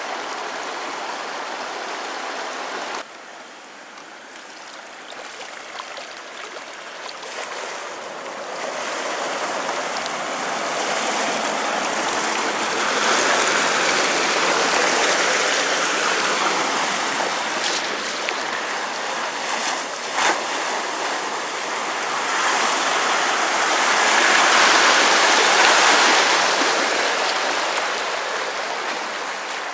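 Water rushing and splashing around the wheels of four-wheel drives fording a creek, swelling louder twice. A steady hiss cuts off sharply about three seconds in.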